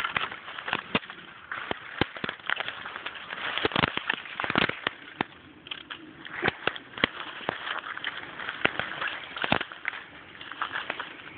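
Footsteps through dry leaf litter and brush, with twigs snapping and leaves crackling at irregular intervals.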